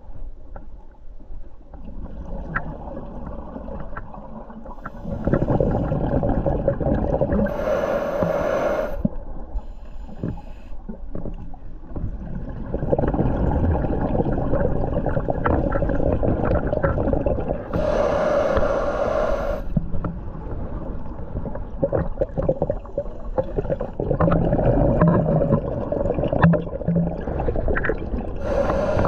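Scuba diver breathing through a regulator underwater: three loud bubbly exhalations about ten seconds apart, with quieter inhalation and a low rumble with scattered clicks between them.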